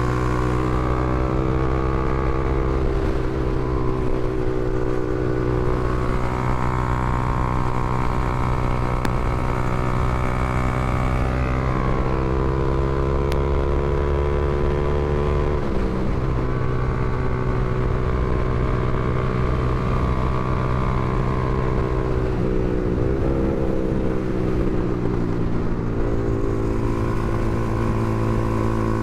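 Honda CBR300R motorcycle's single-cylinder engine running at a steady speed, its pitch shifting briefly about halfway through and again a few seconds before the end.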